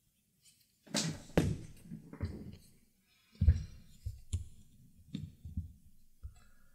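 Hands handling thread and leather on a workbench: a scattering of light knocks and taps at irregular intervals, with soft rustling between them.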